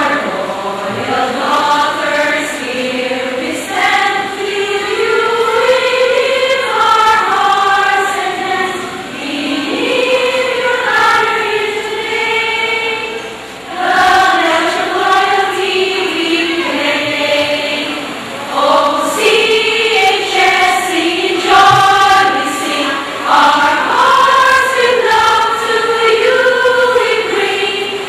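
Women's choir singing the school's alma mater song in sustained phrases, dipping briefly between phrases.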